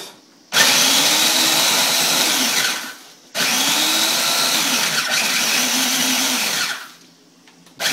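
Small electric food processor grinding broken honey graham crackers into crumbs, run in two pulses of a few seconds each. Each pulse starts sharply and winds down at the end.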